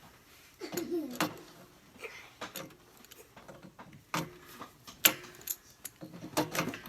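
Scattered clinks and knocks of hand tools and a pipe fitting being handled during a plumbing repair, with a few short bits of voice.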